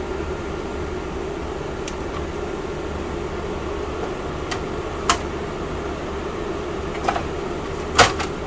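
A homemade metal bracket knocking and clicking against a computer case as it is worked into place: a few sharp knocks, the loudest near the end, over a steady mechanical hum like a fan.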